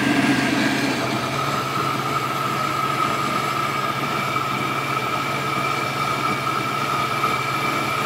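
An Oster 14-speed countertop blender running steadily as it blends a thick fruit smoothie: a motor hum with a steady whine above it that settles in about a second in.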